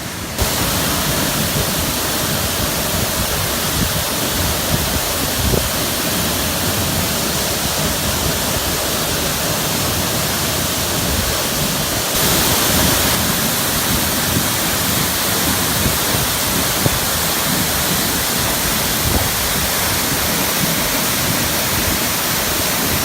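Waterfall pouring: a loud, steady rush of falling water heard close up, with no break in it.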